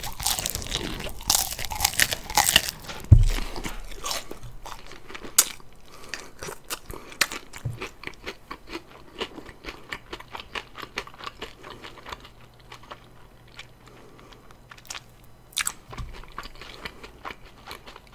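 Crispy fried chicken being crunched and chewed in the mouth, with heavy crunching over the first few seconds, then softer chewing with a steady scatter of small crunches. A dull thump comes about three seconds in.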